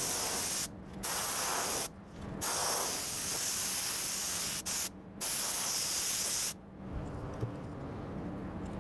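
Compressed-air siphon-feed spray gun spraying upholstery glue in short hissing bursts: four of one to two seconds each with a brief puff between the last two. The spraying stops about six and a half seconds in.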